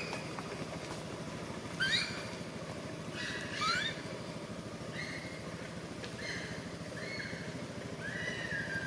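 Newborn baby macaque crying: a series of short, high calls about a second apart, several sliding upward in pitch, ending in one longer held cry. They are distress cries from an infant being held down and handled by a young monkey.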